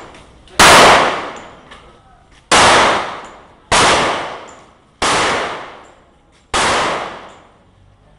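Five single shots from a .45-calibre pistol, fired one at a time about one to two seconds apart, each a sharp report followed by a long echoing decay.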